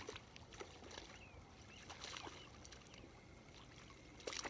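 Faint splashing of a hooked crappie thrashing at the water's surface as it is reeled in, with a louder splash near the end.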